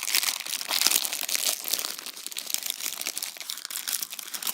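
Paper and thin cardboard packaging crinkling and rustling as it is handled, a busy run of small crackles throughout.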